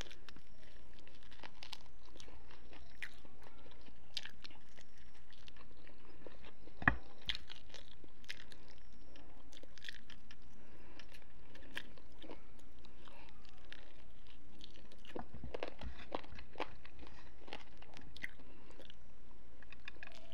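Close-up eating: a person biting and chewing crunchy food, a run of small crisp crackles and mouth clicks with one sharper, louder crack about seven seconds in, over a steady low hum.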